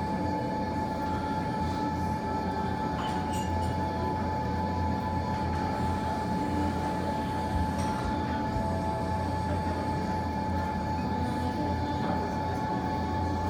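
Steady low mechanical hum with a constant thin tone running through it, and a few faint sharp crackles from a fireplace wood fire, one about three seconds in and one near eight seconds.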